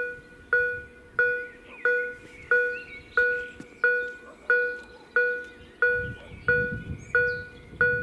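DEPK-08 electronic bell of a Polish level crossing sounding its warning: an even string of bell-like dings, about three every two seconds, each fading quickly. It means the crossing is closed for an approaching train.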